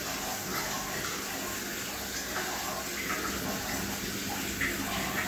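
Steady running and trickling water in a fish tank, with a faint constant hum underneath.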